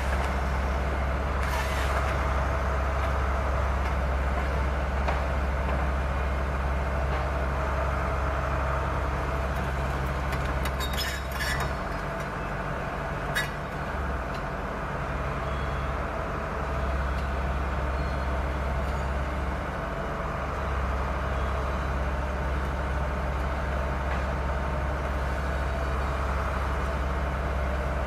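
SANY forestry excavator's diesel engine running steadily under hydraulic load as it works a harvesting head, its low drone easing briefly a couple of times. A few sharp clicks come about eleven and thirteen seconds in.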